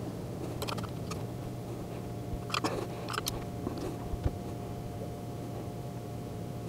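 Faint, scattered clicks and light scrapes of a small hand tool turning screws into a plastic mounting plate, over a steady low hum.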